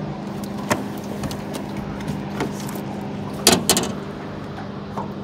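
A few knocks and clunks in a small aluminum boat while a caught catfish is handled and unhooked, the loudest a quick double knock about three and a half seconds in, over a steady motor hum.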